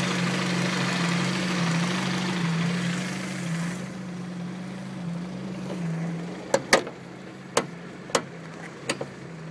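A 1990 Honda Prelude's four-cylinder engine idling with a steady low hum, which the owner takes for a serious fault with a pumping noise from the intake area. A rushing noise, the cooling fan running, drops away about four seconds in, and several sharp clicks follow near the end.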